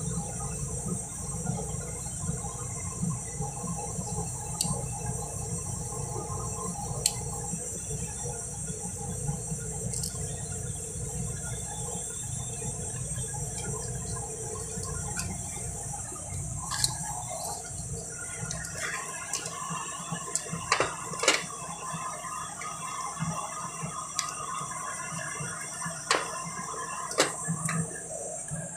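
Scattered sharp metallic clicks and knocks of a ratchet wrench and socket working on the flywheel bolts, more frequent in the second half. Under them runs a steady hiss and a low rumble that fades out about two-thirds of the way through.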